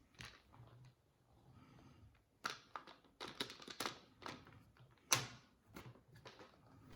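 A plastic parts bag being torn open by hand: faint, scattered crinkles and sharp clicks, with a few louder ones in the middle.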